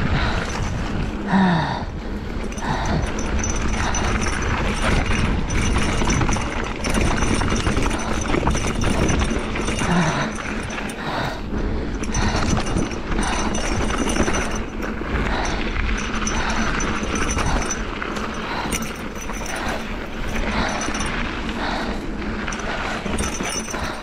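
Esker Japhy single-speed mountain bike rolling fast down a rough dirt singletrack: tyres crunching over dirt and stones and the bike rattling and clattering with every bump, in a steady run of irregular knocks over a low rush.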